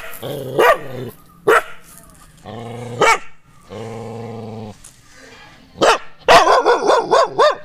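Nadan dog barking aggressively at strangers: sharp single barks, two low held growls between them, then a fast run of about six barks near the end.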